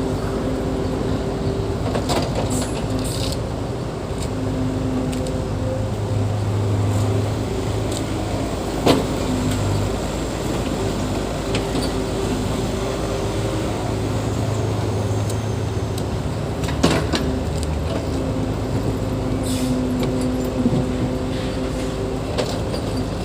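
Diesel engine of heavy earthmoving equipment running steadily, its tone shifting now and then with load. Sharp knocks come about nine seconds in and again near seventeen seconds.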